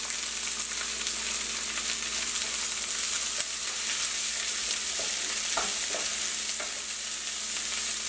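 Chopped red onion frying in hot sesame oil in a nonstick pan, a steady high sizzle, with the soft scrape of a wooden spoon stirring it now and then.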